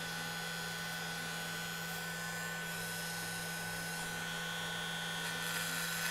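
Corded electric hair clippers running against the scalp, shaving hair, with a steady buzz.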